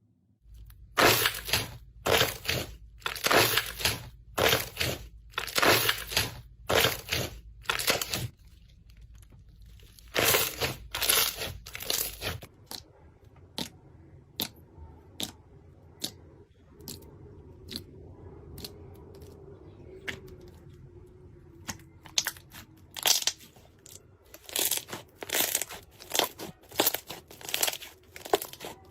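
Slime being squeezed and pressed by hand, making a series of crackling, crunchy squelches about two a second. After a short lull the squelches thin to scattered ticks, then come thick and fast again near the end.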